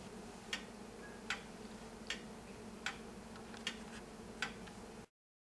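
Faint, regular ticking, about four ticks every three seconds, over a low steady hum. The sound cuts off abruptly near the end.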